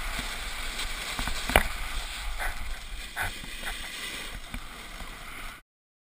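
Wind on the microphone while riding down a groomed snow slope: a steady rumble and the hiss of sliding on packed snow, with a few scrapes and one sharp knock about a second and a half in. The sound cuts off suddenly near the end.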